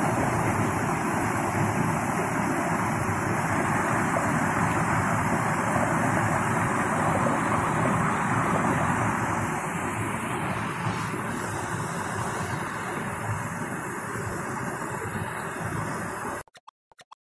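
Stream water rushing down a small waterfall over a rock slab, a steady rush that cuts off suddenly near the end.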